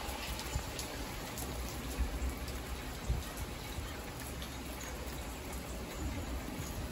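Rain hitting a moving car's windshield and roof, heard from inside the cabin as an even hiss with scattered small ticks of drops, over a steady low rumble of tyres on the wet road.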